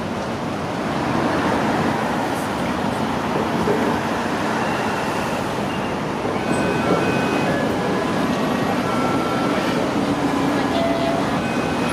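Steady city road traffic noise, with people's voices mixed in.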